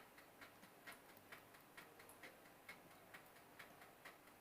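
Faint, even ticking, a little over two ticks a second.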